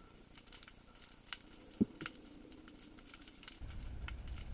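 Faint underwater crackle of scattered irregular clicks, typical of snapping shrimp in coastal seawater. A single louder pop comes a little under two seconds in, and a low rumble joins near the end.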